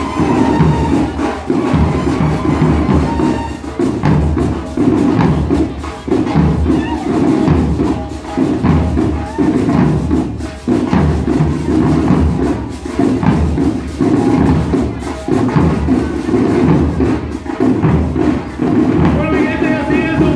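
Marching band playing, with drums beating a steady rhythm under melodic lines.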